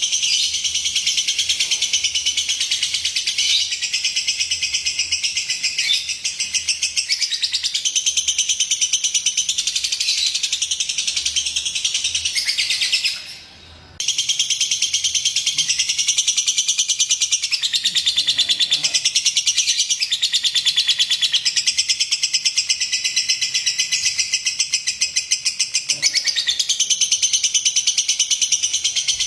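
Lovebird chattering in a long, very rapid, continuous trill, with a sudden break of about a second near the middle.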